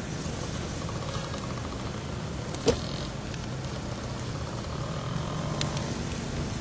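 Car engine idling steadily with a low rumble, and a single sharp click a little under three seconds in as the car door opens.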